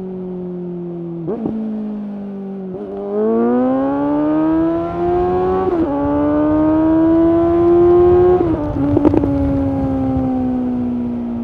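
Suzuki GSX-S750 inline-four running through a Yoshimura SQ11 exhaust with the dB killer removed and the catalyst deleted, riding along: the note eases off, then the engine pulls hard with a rising note, an upshift about halfway, and a second pull. Near the end the throttle is shut with a short burst of crackles from the exhaust, and the note slowly falls as the bike rolls on.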